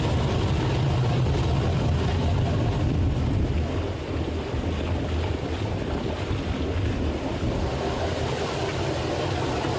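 Twin 5.7-litre MerCruiser V8 inboard engines idling steadily, their wet exhausts discharging cooling water, a sign of good raw-water flow.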